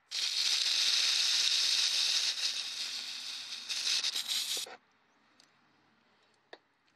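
Aerosol can spraying into a riding mower engine's open air intake to help a hard-starting engine fire: one long, loud hiss that stops suddenly about four and a half seconds in.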